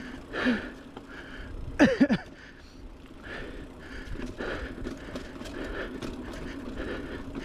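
Heavy, rhythmic breathing of a mountain biker riding hard, about two breaths a second. Two short, loud pitched sounds break in about two seconds in, and light clicks and rattles from the bike on the rough trail come later.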